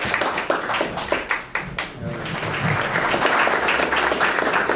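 Audience applauding, with many hands clapping.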